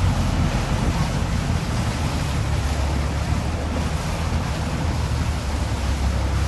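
Long-tail boat's engine running steadily under way, over the rush of water along the hull and wind on the microphone.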